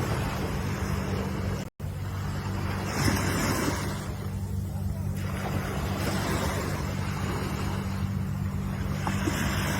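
Ocean surf washing ashore in continuous waves, with one wave surging about three seconds in, over a steady low hum. The sound cuts out completely for an instant a little under two seconds in.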